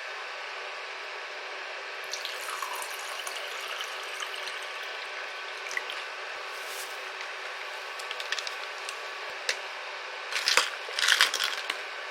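Water running steadily from a kitchen tap, with small clinks and drips and a few louder splashes near the end.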